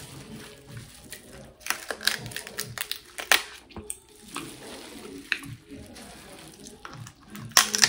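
Crab leg shells cracking and snapping in gloved hands, with plastic gloves and the seafood bag crinkling, and slurping as meat is sucked from a shell. A burst of sharp cracks comes a couple of seconds in, and the loudest crack near the end.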